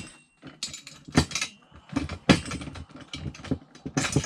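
Metal parts of an engine stand being fitted together: a string of sharp metallic clicks and knocks as brackets and bolts are handled.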